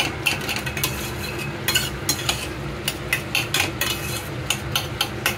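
Metal spatula stirring diced beetroot and potatoes in a stainless steel kadhai, scraping and clinking against the pan in quick, irregular strokes about three a second, over a steady hiss.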